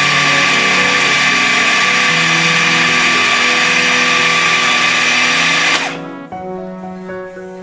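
Electric food processor running, grinding a meat, cheese and egg filling; the motor cuts off suddenly about six seconds in. Background music plays underneath and carries on alone after the motor stops.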